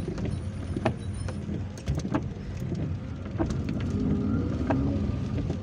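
Car driving on a rain-wet road, heard from inside the cabin: steady low engine and tyre rumble with a few light ticks scattered through it.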